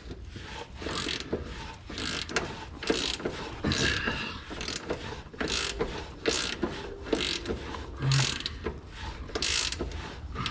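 Hand socket ratchet clicking in quick repeated strokes, about two a second, as a rear subframe mounting bolt is turned out.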